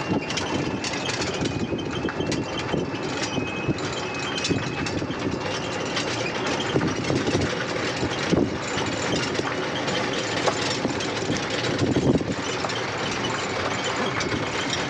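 Open-sided tourist shuttle cart driving along a rough gravel road: steady running noise with many small knocks and rattles from the cart, and a faint high whine during the first few seconds.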